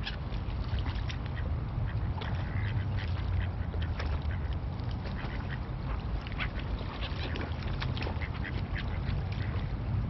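Mixed flock of water birds calling: mallard ducks quacking among many short, scattered calls from black-headed gulls, over a steady low rumble.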